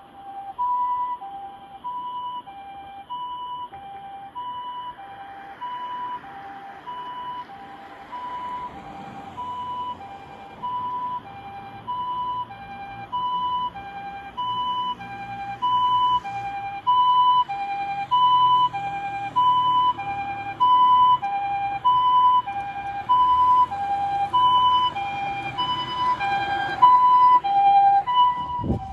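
Fire-department emergency vehicle's TCD siren sounding a two-tone hi-lo pattern, a high tone and a lower tone alternating about once every 1.3 seconds. It grows steadily louder as the vehicle approaches, with vehicle rumble rising underneath. A short low thump comes just before the end.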